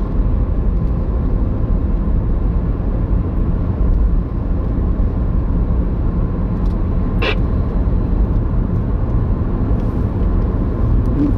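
Steady low rumble of road and engine noise heard from inside a moving car's cabin, with a single sharp click about seven seconds in. Near the end the windscreen washer sprays and the wiper sweeps across the glass.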